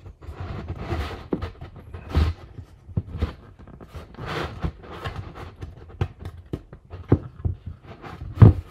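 Wooden centering ring of a model rocket motor mount scraping and knocking against the inside of the body tube as it is twisted and pushed into place: an irregular run of rubbing sounds and clicks, with one louder knock near the end.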